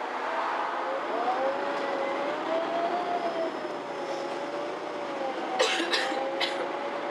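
Inside a MAN Lion's City G articulated bus under way: the drivetrain runs with a whine that rises and falls in pitch as the bus changes speed. A few sharp rattles come between about five and a half and six and a half seconds in.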